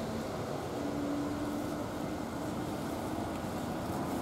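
Steady low background rumble of distant motor noise, with a faint held hum that wavers in pitch.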